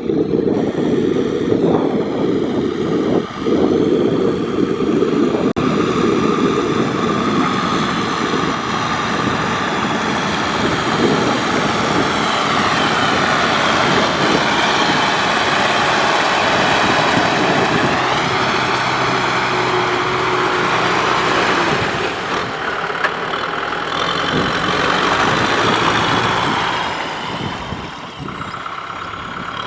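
Tractor engine running steadily under load, its pitch rising and falling in the middle and easing off near the end.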